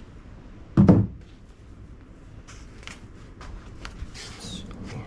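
A single heavy thump about a second in, then light clicks and a brief rustle of things being handled.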